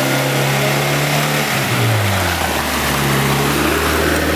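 Engine of a UAZ off-road vehicle running as it drives through deep mud. The engine note drops about halfway through and then holds steady at the lower pitch.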